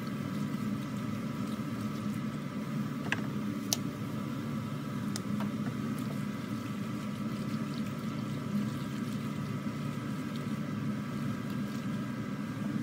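Steady machine hum with a few light clicks a few seconds in.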